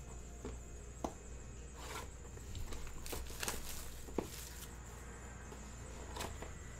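Plastic shrink-wrap crinkling and tearing as it is peeled off a cardboard baseball-card hobby box, with a few small sharp clicks of the box being handled.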